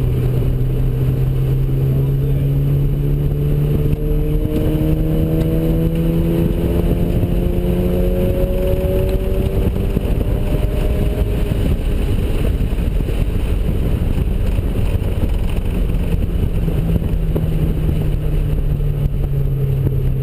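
Mazda RX-7's ported twin-turbo rotary engine running on track. Its pitch climbs steadily for several seconds as the car pulls, then settles into a dense, loud drone for the rest of the time.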